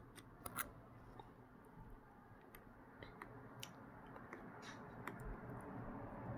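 Faint, irregular clicks of a T2 Torx precision screwdriver working a tiny screw out of the bottom edge of a Huawei P8's metal housing.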